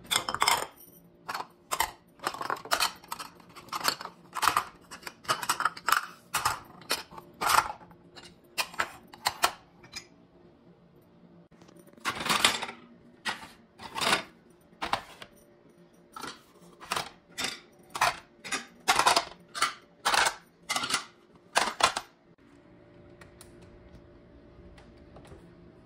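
Ceramic plates and dishes clinking and clattering against each other as a dishwasher is unloaded and the plates are stacked on a shelf: a quick, uneven series of sharp clinks that stops about 22 seconds in.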